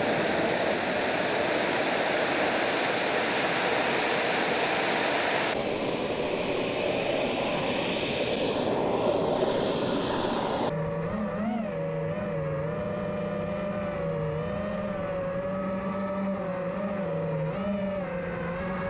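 Turbojet of a large radio-controlled model jet (about 18 kg thrust) running: a loud roaring hiss with a high whine climbing during the first few seconds. About 11 seconds in the sound changes abruptly to a steadier hum whose pitch wavers.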